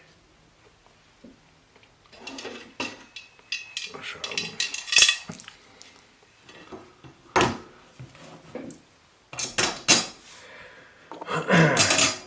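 Metal parts and tools clinking and clattering as they are handled and set down on a workbench, in several separate bursts of sharp knocks with short pauses between.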